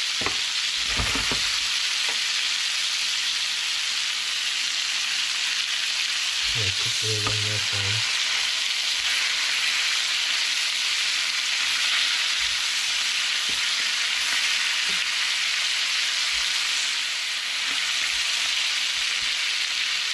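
Blackened cobia fillets frying in a hot pan on medium-high heat: a steady sizzle, with a few light knocks about a second in.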